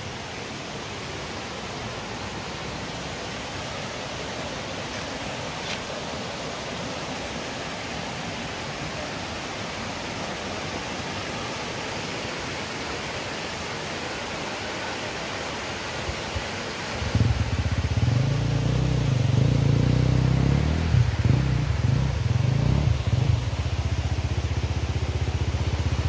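Waterfall cascade rushing as a steady hiss. About seventeen seconds in, an off-road motorcycle engine starts and runs unevenly, then settles into a steady idle near the end.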